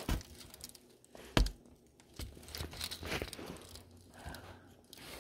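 Small clear plastic jewelry bag crinkling as fingers work it open around a chain and pendant, with a sharp click about a second and a half in.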